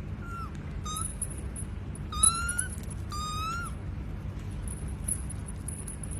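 Newborn kittens mewing: four high, thin mews in the first four seconds, the last two longer with a slight rise and fall in pitch.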